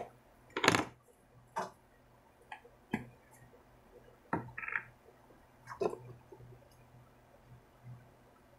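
A few sharp plastic clicks and knocks as a plastic glue bottle is handled and its cap is unscrewed, the loudest under a second in, the rest scattered over the next five seconds.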